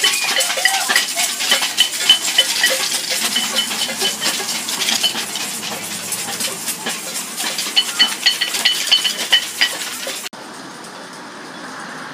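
Dense clinking and clattering of handheld metal noisemakers, pots, utensils and bells, from a marching parade crowd, typical of an Acadian tintamarre, with bright ringing notes through it. About ten seconds in it cuts to a quieter, steady hiss.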